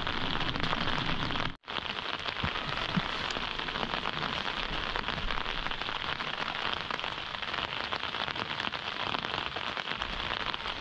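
Steady rain falling: a dense, even patter of drops. The sound drops out completely for a moment about one and a half seconds in.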